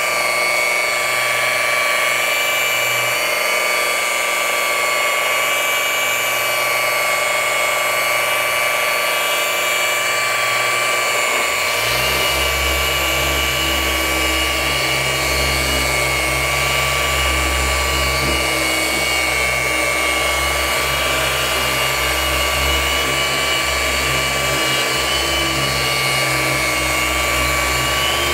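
Handheld electric paint-correction machine running steadily on a car hood, with a constant whine. A deeper low hum joins suddenly about twelve seconds in and carries on to the end.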